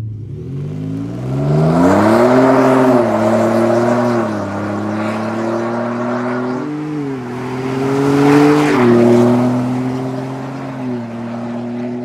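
Ford F-150 EcoBoost twin-turbo V6 through a COBB cat-back exhaust (3-inch stainless piping, dual 4-inch tips) as the truck pulls away under acceleration. The engine note rises in pitch, drops back as the transmission upshifts near three seconds, around four seconds and about nine seconds in, then settles to a steady drone.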